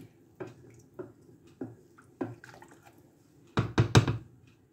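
Water and rice moving in a cooking pot, with soft sounds repeating about twice a second, then a quick cluster of loud knocks against the pot about three and a half seconds in.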